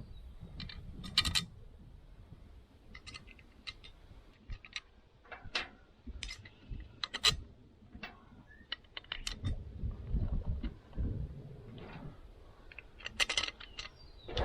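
Irregular small metallic clicks and clinks of bolts, nuts and hand tools being handled while the wheel halves are bolted together around a new loader tire, with a low handling rumble underneath.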